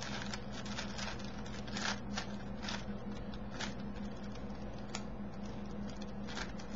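Plastic 4x4x4 Rubik's cube being twisted by hand: layers clicking and rattling in quick, irregular turns, a few clicks a second, over a steady low hum.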